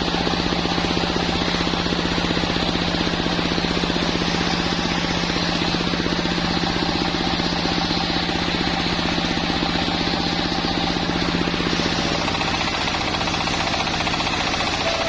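Sawmill machine running: a steady, fast pulsing with a constant hum, which drops slightly in pitch about twelve seconds in.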